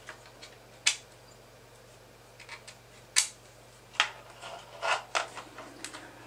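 Sharp clicks and knocks of 3D-printed plastic blaster parts being pressed together and handled on a tile floor. A loud click about a second in and another about three seconds in, then a quicker run of knocks as the printed body is turned over.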